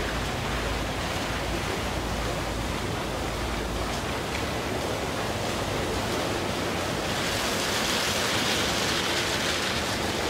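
Automatic car wash tunnel running: water spraying and pouring steadily over a car as it passes through the wash curtains. The spray hiss grows brighter and louder about seven seconds in.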